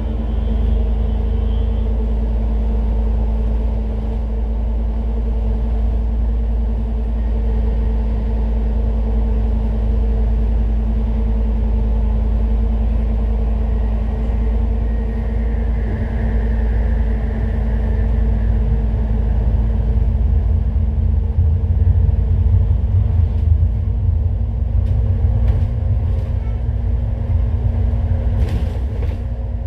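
Citybus bus on the move: steady low engine and road rumble with a constant drone over it, growing a little louder about two-thirds of the way through, with a few faint clicks near the end.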